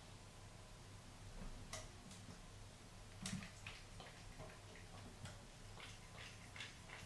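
A cat lapping water from a bathroom floor: faint, irregular wet ticks of its tongue, a few at first and coming faster near the end.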